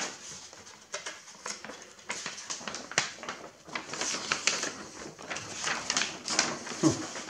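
Large paper fold-out sheet being unfolded from a spiral-bound manual: paper rustling and crackling in irregular bursts, with small clicks and taps.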